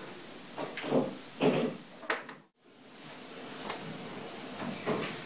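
Cardboard box and plastic milk jug handled and shifted on a countertop: several knocks and scrapes in the first two seconds and a sharp click, then a short break in the sound and quieter handling with a few light taps.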